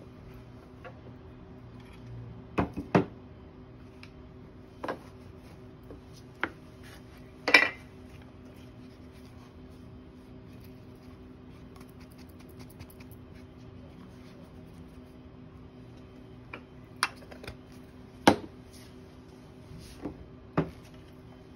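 Scattered sharp clinks and knocks of metal tools being handled and set down on a workbench: a metal hand plane and a metal tin of wax polish, about nine knocks in all, two of them louder. A faint steady hum runs underneath.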